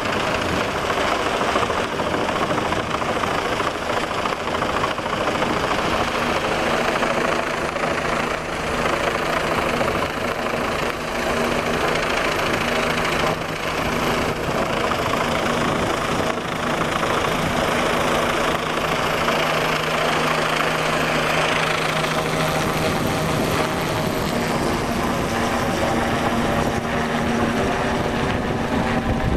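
Helicopter hovering close overhead, its turbine and rotor making a loud, steady noise, with a low hum running through it for much of the time.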